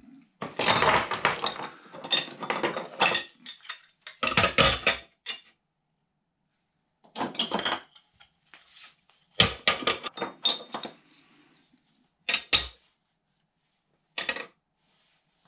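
Loose pieces of scrap metal clattering and clinking as they are handled and piled up for weighing. The clatter comes in about six short bursts with quiet gaps between them.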